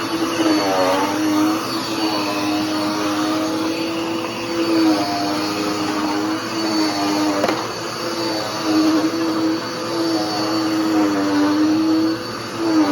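Dirt Devil PowerMax Pet upright vacuum cleaner running, its motor holding a steady hum with a high whine above it, the pitch wavering and dipping briefly a few times. A single sharp click about seven and a half seconds in.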